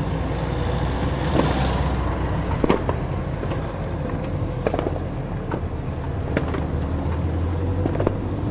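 Steady low rumble of a vehicle running, with scattered light clicks and knocks and a faint steady high whine.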